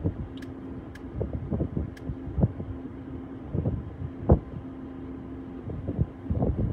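Wind buffeting the microphone in irregular low gusts and thumps, over a steady low hum. Three faint ticks in the first two seconds.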